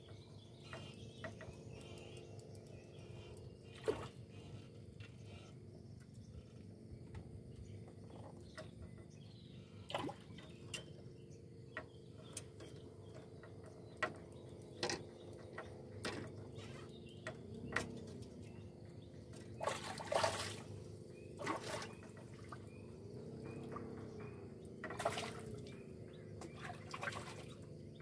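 Water splashing and dripping in short, irregular strokes, a few of them sharper and louder, over a steady low hum whose pitch wavers a few times.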